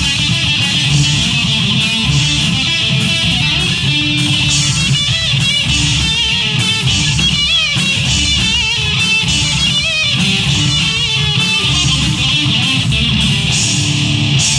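Live rock band of electric guitar, bass guitar and drums playing loudly. The electric guitar plays a lead line with wavering, bending notes, strongest in the middle of the passage, over a steady beat and a heavy bass line.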